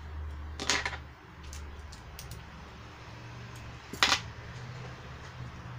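Two short, sharp handling noises over a low steady hum: one just under a second in, and a second about four seconds in that is a snip of small embroidery scissors cutting cotton crochet thread.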